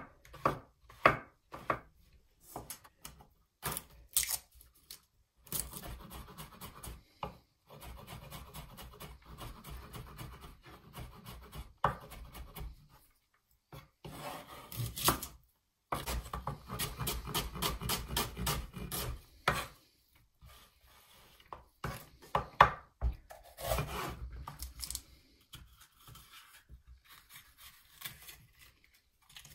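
Kitchen knife slicing mushrooms, red onion and red pepper on a wooden chopping board: a run of knocks of the blade against the board, with two longer stretches of quick, continuous strokes.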